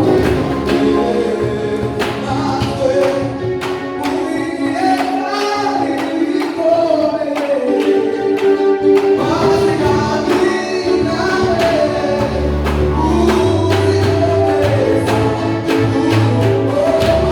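A choir singing a gospel worship song with instrumental backing: a bass line and a steady percussion beat.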